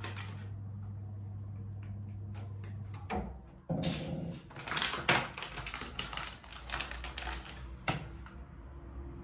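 Quick, irregular light taps and clicks of a small kitchen strainer or utensil being tapped while cocoa powder is dusted over a tiramisu. A steady low hum runs under the first three seconds and then stops.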